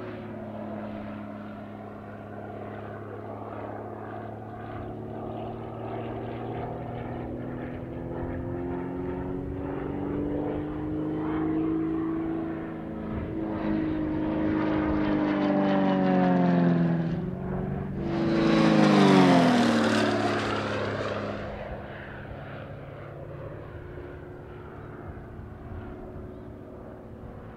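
Extra 300L aerobatic plane's Lycoming AEIO-540 six-cylinder engine and propeller, the engine note rising and falling in pitch as it manoeuvres. About two-thirds of the way through it passes close, getting loud with a rushing propeller noise and a steep drop in pitch, then settles to a steadier, fainter drone.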